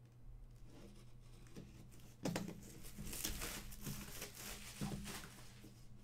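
Product packaging being torn open and crinkled by hand: rustling and tearing with sharp crackles, heaviest from about two seconds in until shortly before the end.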